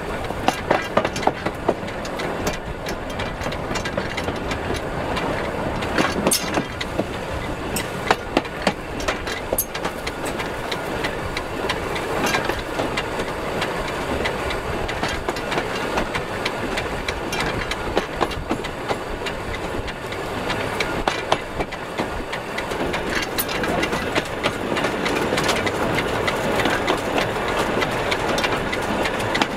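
Narrow-gauge steam locomotive rolling along, its wheels running on the rails with a steady rattle and clank from the coupling rods and valve gear, broken by irregular sharp clicks.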